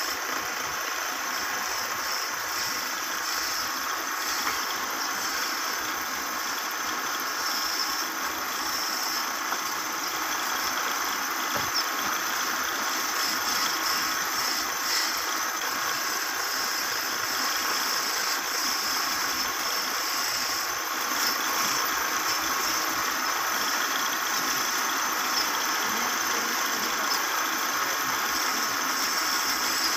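Wood lathe running steadily with a rattling hum, as a stick of coloured lac is held against the spinning wooden bed leg.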